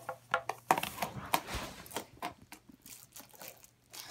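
Plastic packaging crinkling and rustling in hand, with a run of small clicks and knocks, quietening over the last second or so.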